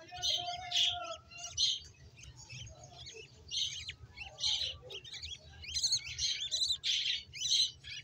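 Budgerigar chicks chirping in quick, high runs, a cluster of nestlings calling over one another, busiest in the second half: begging calls at feeding time.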